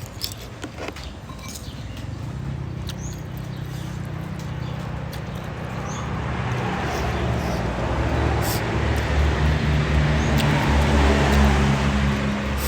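Motor vehicle engine running with road noise, growing louder through the second half.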